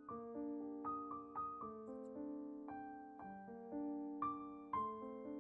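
Soft background piano music: single notes and chords played slowly, each ringing and fading before the next.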